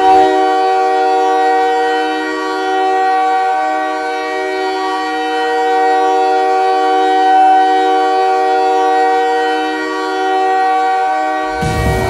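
Montréal Canadiens' goal horn sounding one long, steady blast of several tones at once for about eleven seconds, signalling a goal. The goal song's music cuts in near the end.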